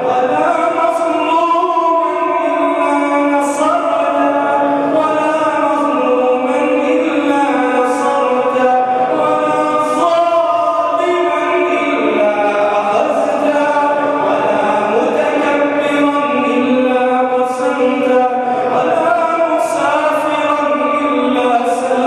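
An imam chants an Arabic supplication (du'a) melodically into a microphone, holding long notes that slide in pitch.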